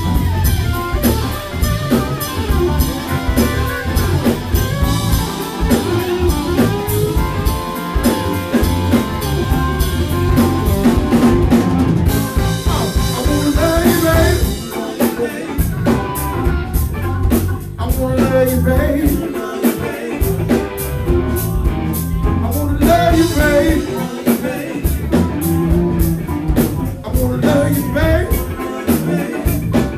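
Live blues band playing: electric guitar and drum kit, with a man singing over them.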